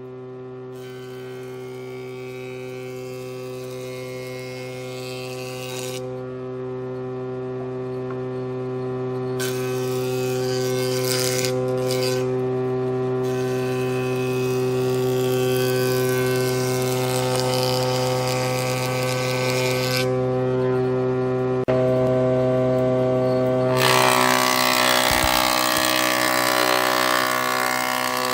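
Electric motor of a homemade table saw running with a steady hum at one pitch. Three stretches of hissing noise come and go over it, the loudest near the end, as the blade cuts wood.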